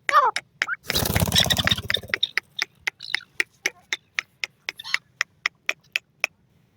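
A teetar (partridge) gives a short falling call, then a loud, harsh rasping call lasting over a second, about a second in. Behind it run sharp, evenly spaced clicks, about four a second, that stop near the end.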